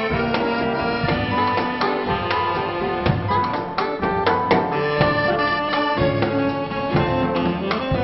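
Live vintage dance band playing a tune, with accordion to the fore over saxophones, guitar and drums keeping a steady beat.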